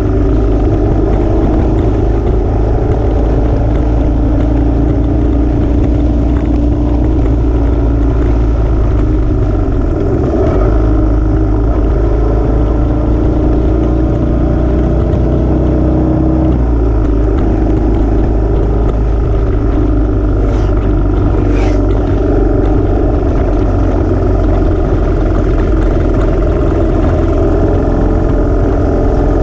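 Royal Enfield motorcycle engine running steadily while riding along, heard from the bike itself; its note shifts about ten seconds in and again around sixteen seconds.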